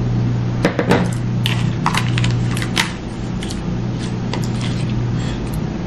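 A metal fork clicking and scraping against a bowl as food is stirred and mixed, with the sharpest clicks in the first three seconds, over a steady low hum.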